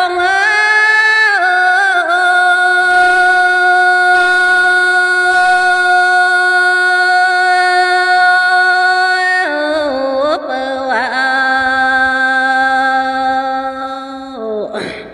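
A woman singing a Dao lượn folk song solo, unaccompanied. She holds one long note for about eight seconds, drops to a lower note held for about five seconds, and stops abruptly near the end.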